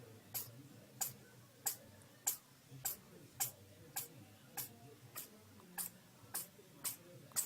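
A small animal sneezing over and over: a short, sharp, high sneeze about every 0.6 s, in a steady rhythm.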